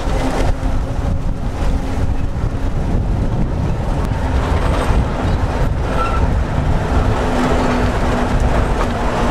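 Snaefell Mountain Railway electric tramcar running uphill: a steady rumble of wheels on track with a low hum that drops out briefly about three seconds in.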